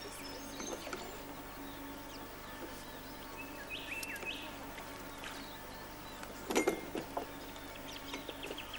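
Birds calling faintly: a short piping call about four seconds in and a rapid chattering trill near the end. A single sharp knock about two-thirds of the way through is the loudest sound, over a steady low hum.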